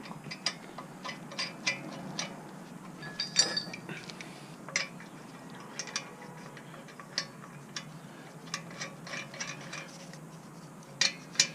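Irregular metal clicks and clinks from lug nuts and a lug wrench being handled and threaded while a wheel is mounted back on its hub, with one ringing metal clink about a third of the way in.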